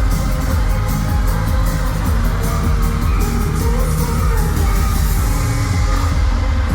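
Live K-pop song played loud through a concert venue's sound system, singing over a steady beat, heard from the audience.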